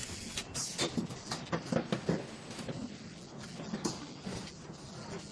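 Car assembly-line factory noise: a run of irregular metallic clicks and clanks in the first couple of seconds and one more near the end, over a steady low hum.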